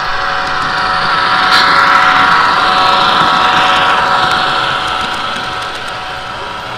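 HO scale model train running past close by: a steady electric hum over wheel-on-rail rumble that swells to a peak about two seconds in, then slowly fades, with a few light ticks.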